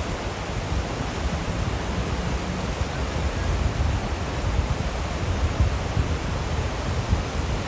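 Rushing river rapids: a steady, loud hiss of white water with an uneven low rumble underneath.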